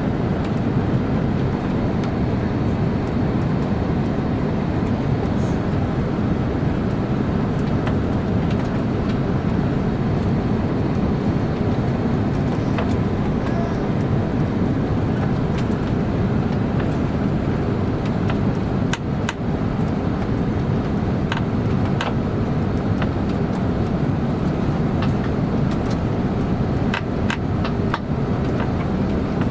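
Steady rumble of an Airbus A330-200's engines and airflow heard inside the passenger cabin during the approach to land. Scattered small clicks and rattles come in over the second half.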